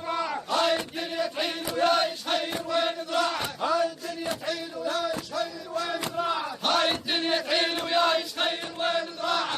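A crowd of men chanting an Iraqi hosa (tribal war chant) in unison, repeating a short refrain over and over in a steady rhythm.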